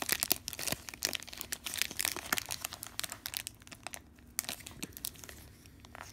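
Packaging crinkling and rustling as trading cards are unwrapped and handled, a quick run of crackles that thins out after about three seconds.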